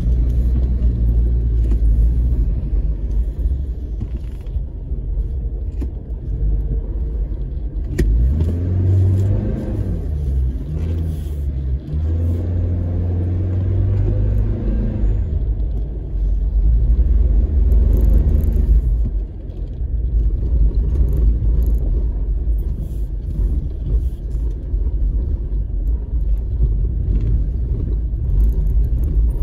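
Off-road vehicle's engine running with a heavy low rumble inside the cabin while driving over sand dunes; from about eight seconds in, the engine note rises and falls for several seconds as the throttle is worked, and there is a single sharp click around the same time.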